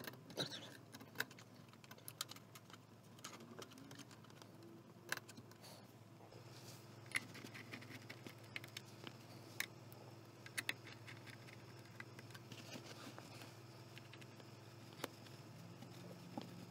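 Faint, scattered clicks and taps of hands at work on a VCR's metal chassis: plastic wiring-harness plugs being pushed home and a screwdriver touching the steel rear panel.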